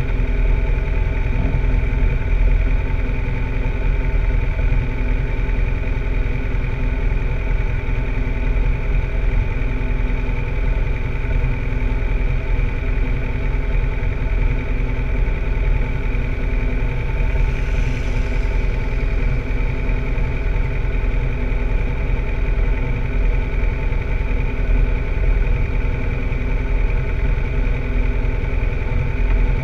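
BMW F800GS parallel-twin engine idling steadily.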